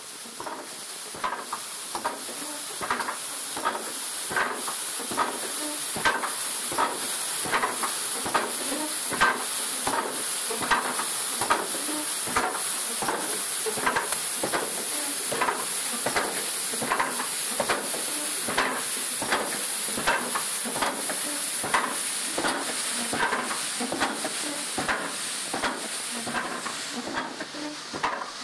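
Wooden water-powered trip hammers pounding porcelain stone in stone mortars, striking regularly a little more than once a second over a steady hiss.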